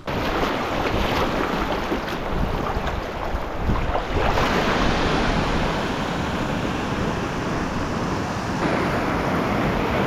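Strong wind rushing over the microphone, a dense steady noise with heavy low rumble.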